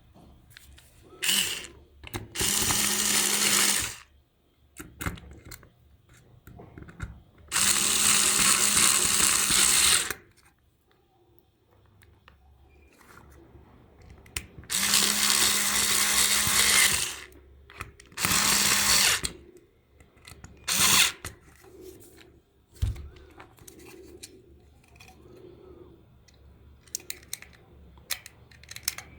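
A small handheld power tool, such as a drill or rotary tool, running in several bursts of two to three seconds each, with short blips between them and quiet handling sounds in the gaps.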